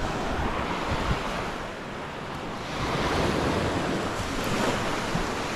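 Small waves breaking and washing up onto a sandy shore, with wind buffeting the microphone. The wash swells louder about halfway through.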